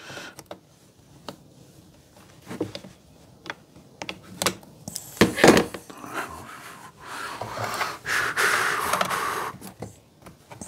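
Small handling noises of chainsaw carburetor parts as the choke lever is squeezed and worked out of its holder: scattered clicks and taps, then a longer stretch of rubbing and scraping in the second half.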